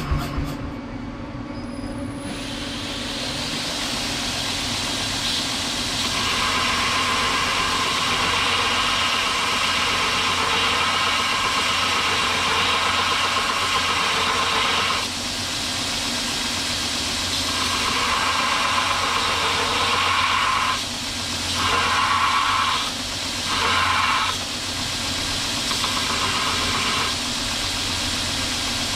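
KMG 2x72 belt grinder running, with a steel railroad-spike piece pressed against the moving belt and grinding in long stretches. The grinding drops out briefly about halfway through and a few more times near the end, as the work is lifted off the belt.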